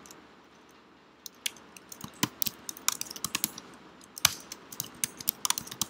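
Typing on a computer keyboard: irregular key clicks that start about a second in, a few keystrokes louder than the rest.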